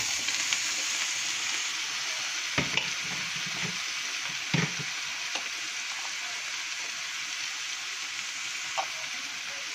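Chopped vegetables sizzling in olive oil in a frying pan, a steady hiss that is loudest just as they are tipped in. A few short knocks of a utensil against the pan come about two and a half, four and a half and nine seconds in.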